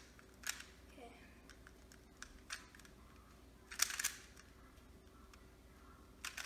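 Plastic speed cube being turned by hand, its layers clicking and clacking in short bursts: single clicks here and there and a quick run of turns about four seconds in.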